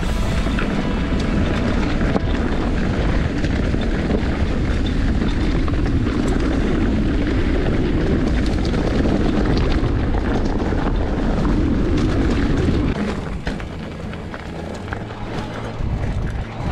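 Steady wind buffeting and rumble on the microphone of an off-road bike ride, loud, easing somewhat about 13 seconds in.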